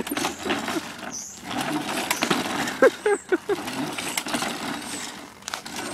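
Clattering and clicking of a lawn mower being worked at by hand to start it, with no engine catching.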